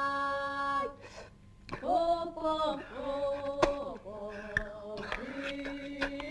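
A man singing a slow tune in long, drawn-out notes that slide from one pitch to the next. The singing breaks off for under a second about a second in, then resumes.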